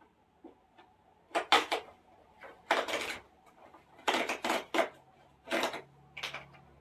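Corrugated cardboard mailer box being pried open by hand: a series of short scraping and rubbing noises as the tucked-in lid is worked loose, the loudest about one and a half seconds in.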